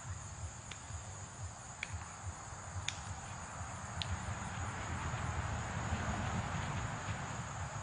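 A steady, high-pitched chorus of insects over a low rumble of wind on the microphone, with four faint ticks about a second apart in the first half.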